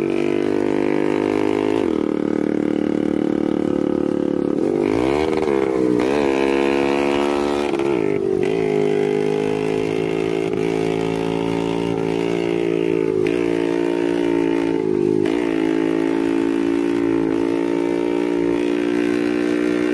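Smoky two-stroke Vespa scooter engine running steadily, its pitch rising and falling briefly a few times as the throttle is blipped.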